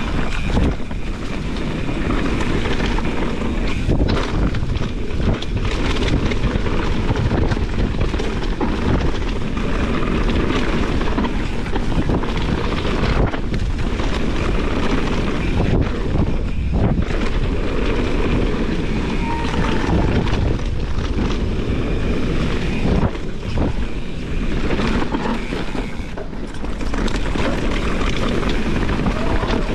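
Mountain bike descending a rough dirt trail at speed: steady wind buffeting on the microphone over the rumble of tyres on dirt and the rattle of the bike's chain and suspension, with frequent small knocks over bumps.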